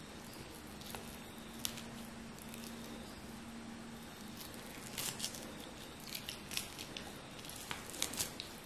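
Frog skin being peeled off the carcass by hand: small wet, sticky sounds with scattered sharp clicks, bunched about five seconds in and again near the end.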